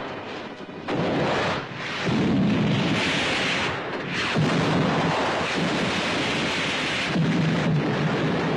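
Explosions in a film's battle soundtrack, one running into the next as a loud, dense, continuous noise of blasts and rumbling debris, briefly quieter in the first second and again just before two seconds in.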